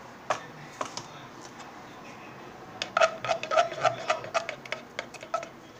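A small plastic dropper drawing up hot liquid gummy-bear gelatin mixture: two clicks near the start, then from about three seconds in a quick run of short squeaks, about four or five a second.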